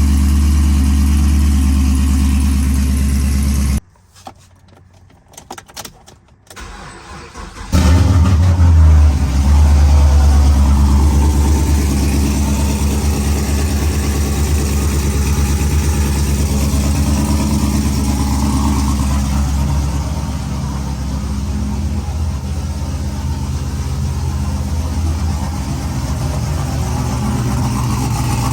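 Car engine running, then cutting off abruptly about four seconds in. It restarts about eight seconds in with a brief flare and settles into a steady idle.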